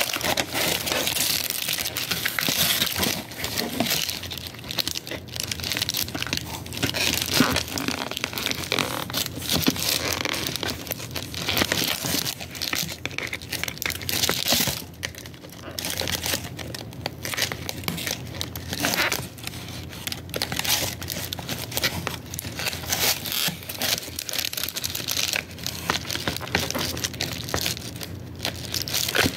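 Plastic wrapping and packing material crinkling and rustling inside a cardboard shipping box as a boxed eyeshadow palette is handled and pulled out, with continual sharp crackles.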